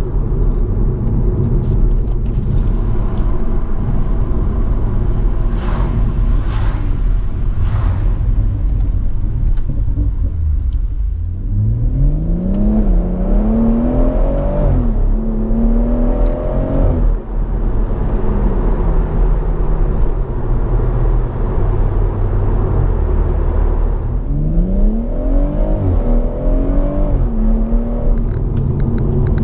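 BMW M140i's turbocharged straight-six with M Performance exhaust, heard from the cabin: steady cruising, then two hard accelerations about a third and four-fifths of the way through, each with the revs climbing and dropping back at the upshifts before settling to a steady cruise again.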